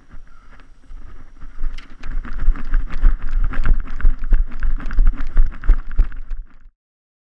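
Footsteps of someone running across grass, thumping about three times a second, with the camera jostling and wind buffeting the microphone. The sound grows loud about two seconds in and cuts off suddenly near the end.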